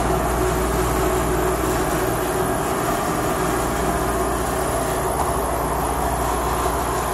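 Steady machine hum and low rumble, with a few faint steady tones riding on it.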